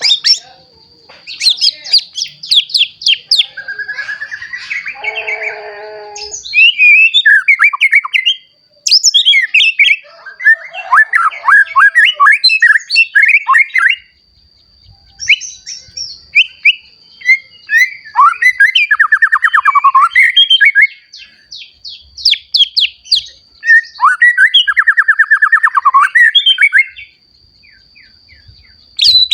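Young white-rumped shama singing loud, varied phrases of rapid trills, whistles and pitch sweeps, with short pauses between bursts.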